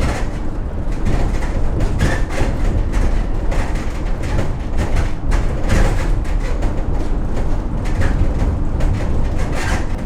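Road and engine noise inside the cabin of a moving long-wheelbase van at about 30 mph, a steady rumble with frequent knocks and rattles from the bodywork. The panels are lined with butyl sound-deadening mat, yet the road noise remains.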